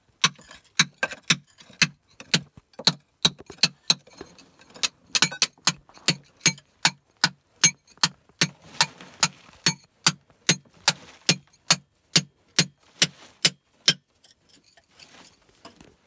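A quick, fairly even series of sharp knocks, about two and a half a second, that stops a couple of seconds before the end.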